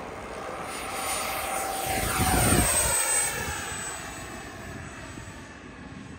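Twin electric ducted fans of a Freewing F-14 model jet whining in a fast pass: the sound swells to its loudest about two and a half seconds in, then falls in pitch and fades as the jet goes by.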